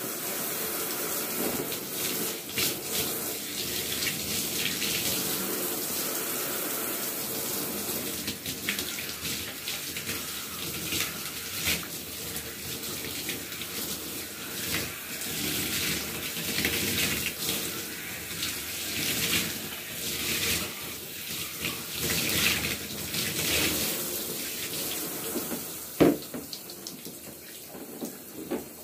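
Water running and splashing irregularly as hair is wetted and washed. It quietens near the end, with one sharp knock.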